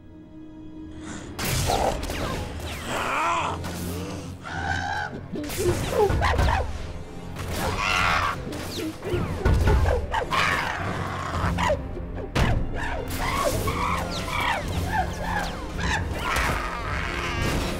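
Film action soundtrack: dramatic music mixed with repeated thuds, crashes and impacts, rising sharply about a second and a half in after a quiet start.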